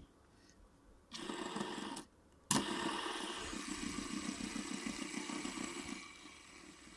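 Fidget spinner spinning with a whirring, fast-fluttering buzz. A short spin comes about a second in; then a sharp flick about two and a half seconds in sets it going again, and it dies down near the end.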